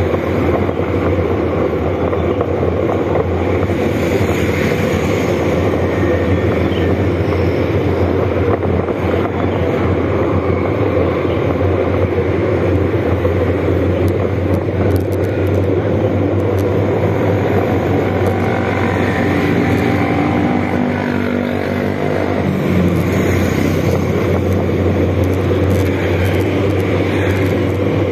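Motorcycle engine running steadily while riding, under steady wind and road noise on the microphone. The engine note changes pitch briefly about two-thirds of the way through as the speed changes.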